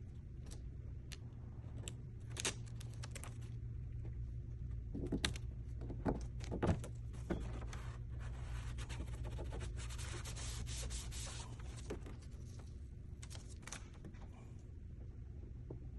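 Vinyl decal and its backing liner crackling as the liner is peeled away, with bursts of louder crackles in the middle. Then a stretch of gloved fingers rubbing the vinyl down onto the car's hood, over a steady low hum.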